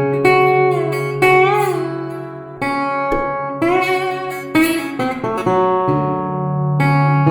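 Republic Duolian steel-bodied resonator guitar in open F# minor tuning, played as a run of separate plucked notes that ring out over a sustained bass note. About a second and a half in, one note wavers up and down in pitch.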